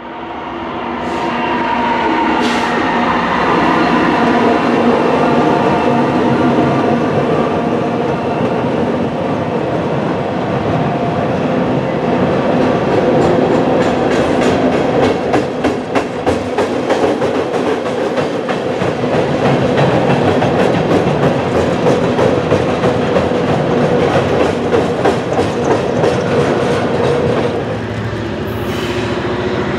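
Empty coal hopper train rolling across a steel trestle: a loud steady rumble with ringing tones, and from about halfway a fast clickety-clack of wheels over the rail joints. Near the end it changes abruptly to a lower, quieter rumble.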